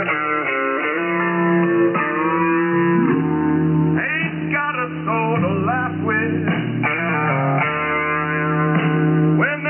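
Guitar-led rock music received as a shortwave single-sideband broadcast, so the sound is narrow and thin, with nothing above about 3 kHz. Notes bend in pitch partway through.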